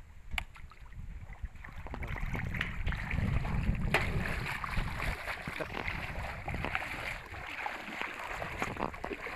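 Water splashing and churning as someone wades quickly through shallow water, loudest around three to four seconds in.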